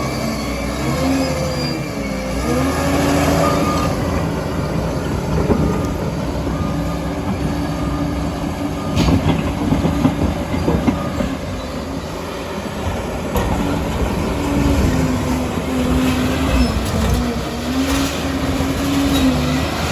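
Liebherr PR 746 crawler dozer at work: the diesel engine runs hard, its note dipping and recovering a few times, while the steel tracks clatter and squeal, with a run of heavier clanks about halfway through.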